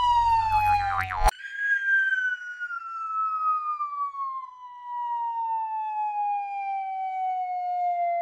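Electronic tone with a few overtones, sliding slowly and steadily down in pitch. It breaks off about a second in, jumps back up, and falls again, with a low hum beneath it for the first second.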